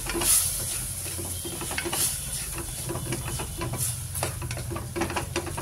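Wooden spatula stirring and scraping an onion-tomato masala with ginger-garlic paste around an aluminium pressure cooker, in repeated strokes over a steady frying sizzle. The paste is being sautéed until its raw smell goes.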